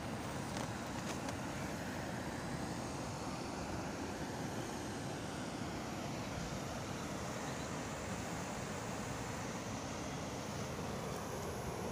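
Steady rushing noise of fast-flowing muddy floodwater spreading over a field after heavy rain.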